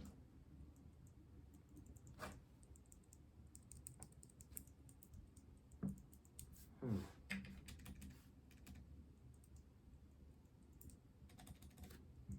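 Faint, scattered light plastic clicks and brief rustles: a small pack of Keychron mint keyboard switches being opened, with a switch taken out and pressed a few times near the end.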